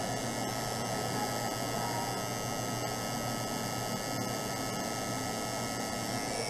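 Electric tattoo machine running with a steady, even hum as the needle works into skin.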